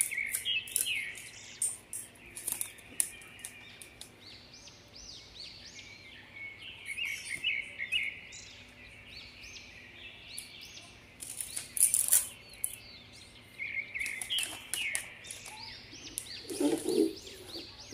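Clear cellophane wrap crinkling and crackling in quick, irregular bursts as it is handled and folded, loudest at the start and again about twelve seconds in. Small birds chirp in short clusters behind it.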